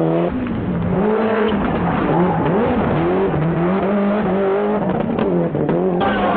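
Toyota Celica GT-Four ST185 rally car's turbocharged four-cylinder engine driven hard, its revs climbing and dropping several times over.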